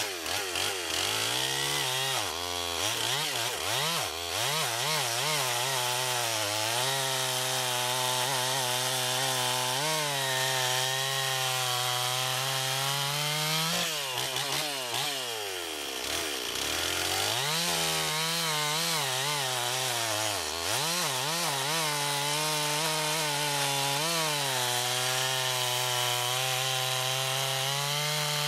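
Freshly rebuilt Stihl 026 two-stroke chainsaw running at high revs and cutting through a log, on its first test in wood after a cylinder, piston and carburetor rebuild. The engine note drops and climbs back three times, a few seconds in, around the middle and about two-thirds through, and otherwise holds high and steady while the chain cuts.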